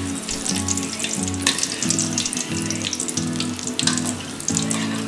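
Aval-coated paneer balls deep-frying in hot oil, a steady crackling sizzle of many small pops. Background music with steady low notes plays underneath.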